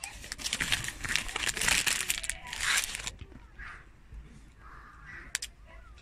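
An ice-cream bar's foil-lined plastic wrapper being crumpled in the hand, a dense loud crinkling for about three seconds. A sharp double click comes near the end.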